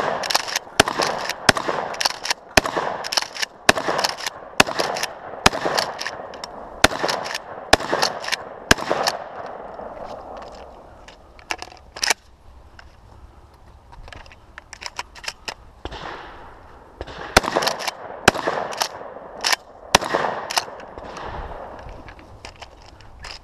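Shotgun fired in rapid strings during a timed competition stage: a quick run of shots through the first nine seconds or so, a few spaced shots with pauses after, then another fast string near the end.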